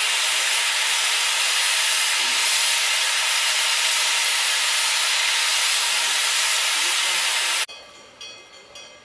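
Steam locomotive venting steam in a loud, steady hiss that cuts off abruptly near the end, leaving only faint quieter sounds.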